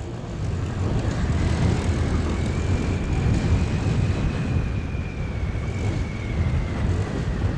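Small motorcycle engine running under way with its exhaust muffler removed, giving a rough, low exhaust note. A faint high whine rises slightly and falls back in the middle.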